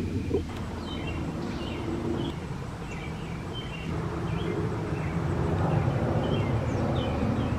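Twin-engine jet airliner flying over, a steady low rumble from its engines that grows louder from about halfway through. Birds chirp in short calls throughout.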